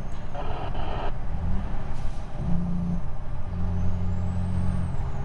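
Semi-truck diesel engine running, heard from inside the cab, its note shifting pitch a few times. A brief higher-pitched burst of sound comes about half a second in.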